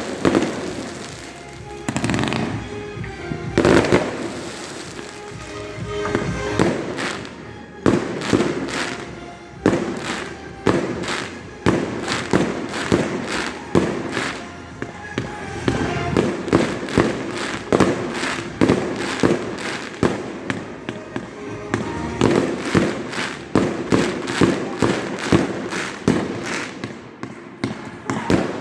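Fireworks going off in a continuous barrage, a rapid run of sharp bangs and crackles several times a second with no let-up.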